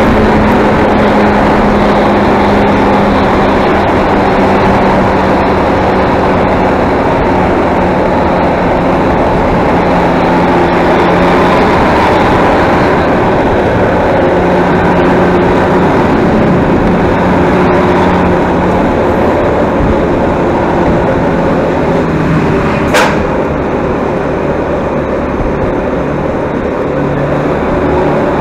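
Road vehicle on the move: a steady engine hum whose pitch drifts slowly with speed, under constant road and wind noise, with one sharp click near the end.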